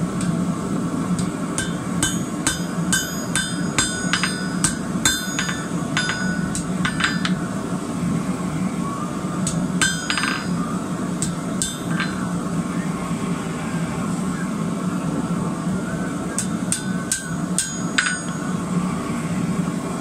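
Hand hammer striking a red-hot wheat-twist bar on an anvil, drawing it out: ringing blows at about two a second for the first seven seconds, then fewer, scattered strikes. A steady low hum runs underneath.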